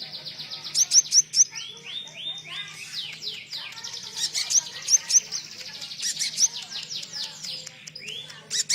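Small songbird singing a rapid, continuous run of high down-slurred chirps, several a second. A few lower arching whistles come about two to three seconds in and again near the end.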